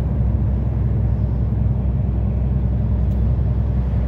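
Loaded heavy truck driving along: the steady low drone of its diesel engine and road noise, heard from inside the cab.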